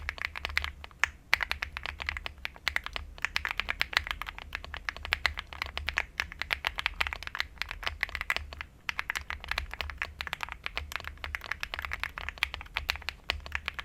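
Fast, continuous typing on a Weikav Lucky65 V2 mechanical keyboard with Zouce Bubblegum linear switches and Pastel Chaos keycaps: a dense stream of key presses with a creamy sound, and a few brief pauses.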